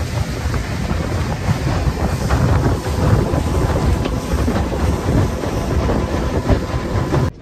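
Outboard motor driving a small open fishing boat at speed, under heavy wind buffeting on the microphone and rushing spray. The sound drops off suddenly near the end.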